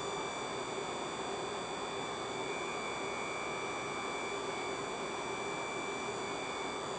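Steady hiss with several fixed high-pitched whining tones from a pulse-driven water electrolysis cell and its drive electronics while gas streams from one tube electrode. The sound is unchanging throughout.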